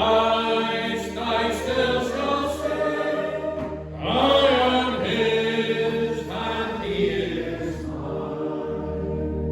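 A church congregation singing a hymn over sustained accompanying chords. The voices stop near the end while the accompaniment holds on.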